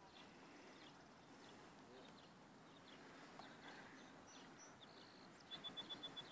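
Near silence with faint, scattered bird chirps; near the end a bird gives a quick run of about eight even, high notes.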